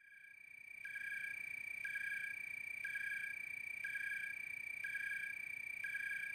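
Night-time pond ambience sound effect: a steady high trill with a chirping pulse that repeats about once a second. It fades in over the first second.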